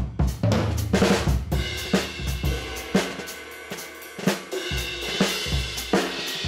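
Background music driven by a drum kit: kick, snare and hi-hat hits in a steady beat over a bass line.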